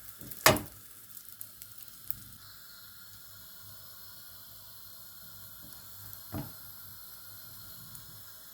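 Food sizzling in a frying pan, a steady faint hiss. A sharp knock about half a second in, and a softer one near the end.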